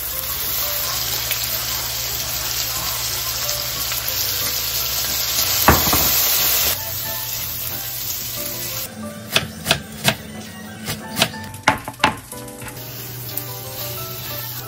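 Food frying in a pan with a steady sizzle. About halfway through the sizzle drops back and a run of sharp clicks and taps follows, like a utensil knocking against the pan, before the sizzle picks up again near the end. Soft background music underneath.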